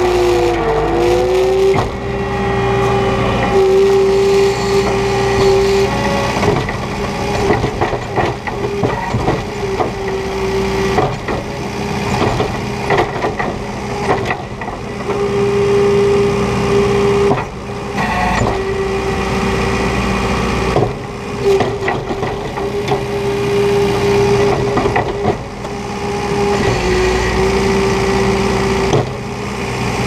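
New Holland 170S skid steer's diesel engine running under load while pushing and lifting snow, heard from the operator's seat: a steady drone that sags briefly about a second in, with frequent clanks and knocks from the machine.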